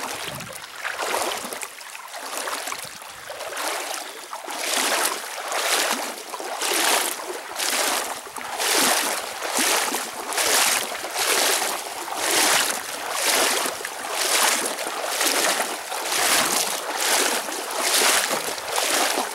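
Paddle strokes in shallow creek water: a rhythmic swish of the blade about once a second, settling into a steady even pace a few seconds in.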